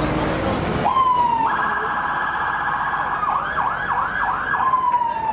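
Emergency vehicle's electronic siren cycling through its tones: a short falling wail, then a rapid yelp, then a slower up-and-down warble. Near the end it settles into a long falling tone as it winds down.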